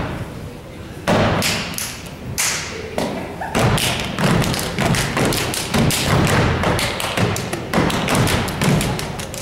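A youth step team stepping in unison: stomps on a wooden stage floor with hand claps, in a fast rhythm. It starts about a second in after a short pause and gets denser from about three and a half seconds in.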